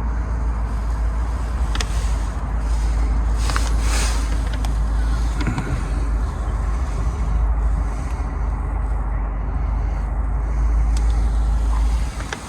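Heavy low rumble of wind buffeting the microphone, with a few faint clicks; the rumble cuts off just before the end.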